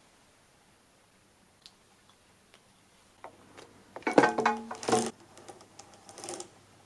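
Roller blind's bead chain being pulled hand over hand, the beads rattling through the blind's clutch as the blind winds up. There are a few light clicks first, then a loud spell of about a second starting about four seconds in and a weaker one near the end.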